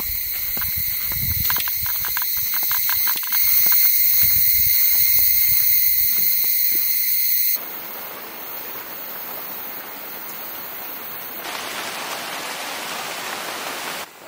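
Tropical insects shrilling in a steady high chorus, with low footfalls on a dirt path; about seven and a half seconds in this gives way to a steady hiss that grows louder near the end.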